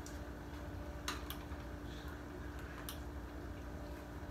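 A few light clicks and taps from kitchen utensils being handled, over a steady low hum.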